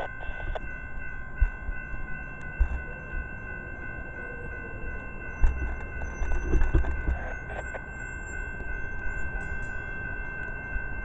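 Railroad crossing warning bells ringing steadily while the flashing signals are active. Low thumps come and go, the loudest about five and a half to seven seconds in.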